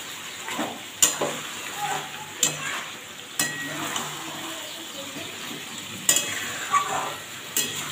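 A spatula stirring chicken and potato pieces frying in oil in a metal kadai, with a low sizzle throughout. The spatula knocks against the pan about five times, irregularly.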